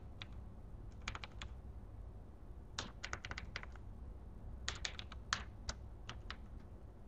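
Computer keyboard keystrokes in short, irregular runs of clicks, with pauses between them. A steady low hum sits underneath.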